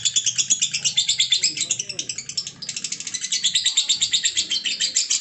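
Lovebird in ngekek: an unbroken run of rapid, high chirps, about ten a second, kept up without pause as a long-duration bout, dipping briefly about halfway through before carrying on at full strength.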